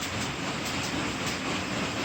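A C62 steam locomotive train running: a steady rushing noise with faint, quick, regular beats in the first part.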